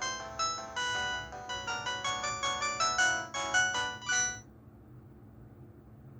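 Huawei ETS688 phone playing a ringtone melody of quick, short notes, several sounding at once, which stops about four seconds in and leaves a faint hiss.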